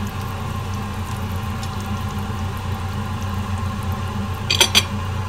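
Stainless steel pot of sinigang broth simmering on the stove under a steady low hum, with two sharp metallic clinks near the end.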